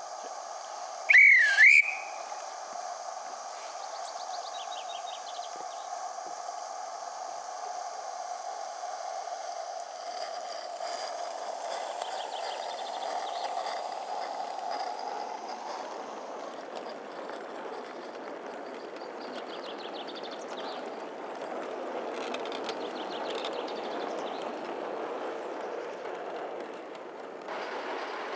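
Steam whistle of a Gauge 1 live-steam Midland Railway Tilbury tank model giving two short blasts about a second in, the pitch dipping and rising again. A steady hiss follows.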